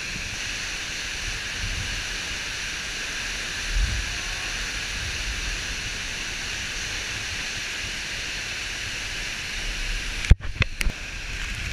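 Steady rush of a waterfall heard close up in a narrow rock gorge. About ten seconds in, one sharp knock with a brief dropout.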